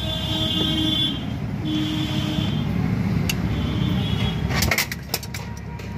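Sharp metallic clicks of a spanner working a gearbox mounting bolt, one about three seconds in and a quick run a little under five seconds in. Underneath is a steady rumble of vehicle engines.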